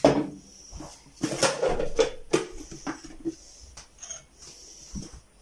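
Knocks and clatter of an old metal vessel being set down on a tabletop and a glass bowl being handled on a kitchen scale: a sharp knock at the start, then a busy second or so of clatter and a few lighter clicks.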